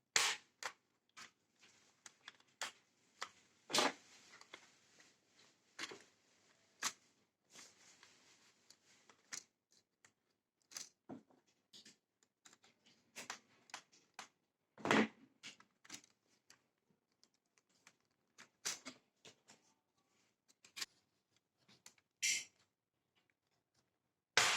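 Irregular small clicks, taps and knocks with light scraping from hands and tools working on a Lenovo ThinkPad E15 Gen 4 laptop, with the heaviest knocks near the start, about four seconds in and about fifteen seconds in.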